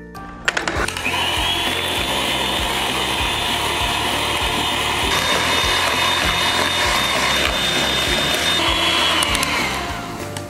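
Electric hand mixer beating eggs and sugar in a plastic bowl. It starts with a click about half a second in, rises to a steady high whine, and winds down falling in pitch near the end. Background music with a steady beat plays underneath.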